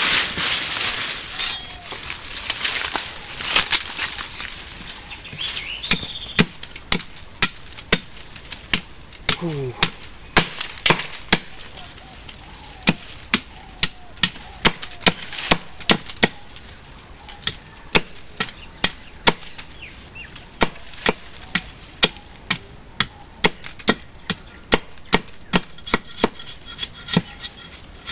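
Repeated sharp chopping strikes into wood, about two a second in runs with short pauses between them. A burst of rushing, hissing noise comes at the start.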